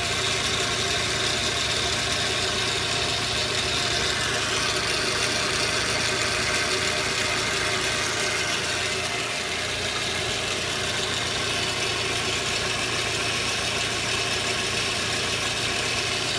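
Audi 80 Cabriolet's 1.8-litre four-cylinder engine running steadily at idle, a noise whose normality the owner questions.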